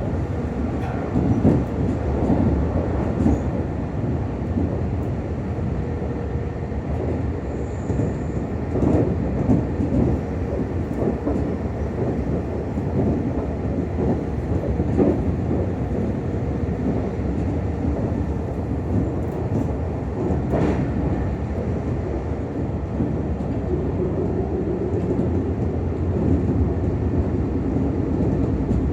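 Running noise heard inside a Meitetsu 6000 series commuter train car: a steady rumble of wheels on rail, with a few scattered knocks as the wheels cross rail joints.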